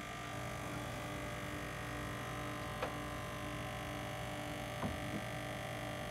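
Steady electrical hum with a faint, evenly pulsing undertone, and two light taps a couple of seconds apart as a rigid acrylic print is pressed against the wall.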